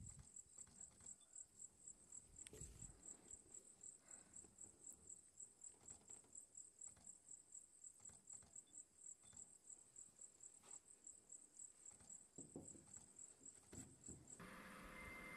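Faint cricket chirping: a high, even pulse of about five chirps a second, which stops near the end.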